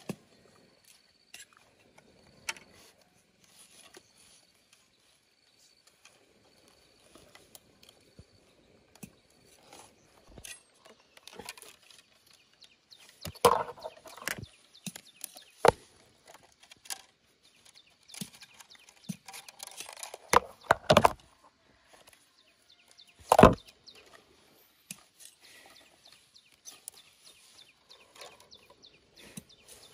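Dry bamboo strips rustling and clicking as they are bent and woven around a bamboo tube by hand, with a few louder knocks of bamboo on bamboo partway through.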